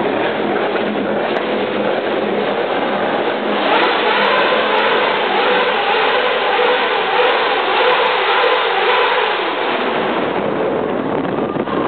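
Loud car engines revving, their pitch rising and falling over and over through the middle of the stretch.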